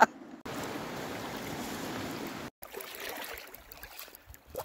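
Flowing river water: a steady rush that cuts off abruptly about two and a half seconds in, followed by quieter, uneven water sounds with small clicks.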